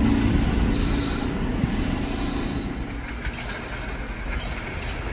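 New York City subway train running past on the rails, its sound fading. About three seconds in it gives way to the quieter sound of a train approaching from a distance.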